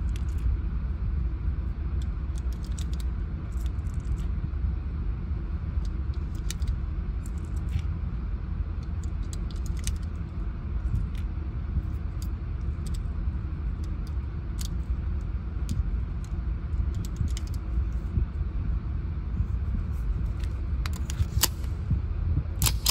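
.380 ACP cartridges clicking one by one into a Bersa Thunder 380's magazine as it is loaded by hand, over a steady low rumble. Near the end come a few louder metallic clicks as the pistol is handled.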